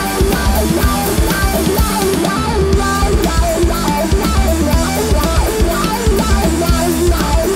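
Instrumental heavy psychedelic rock played live by a guitar, bass and drums trio: a fast lead line on a Telecaster-style electric guitar over driving bass and drums with steady cymbal hits.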